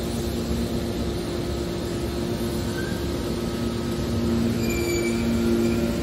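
Hydraulic scrap-metal baling press running: a steady hum from its motor and hydraulic pump, with a few short high squeals in the second half as the rams move and press.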